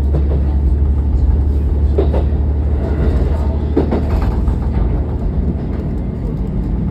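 Diesel railcar running along the track, heard from inside the driver's cab: a steady low engine drone that eases slightly after about four seconds, with a couple of short clacks from the wheels on the rails.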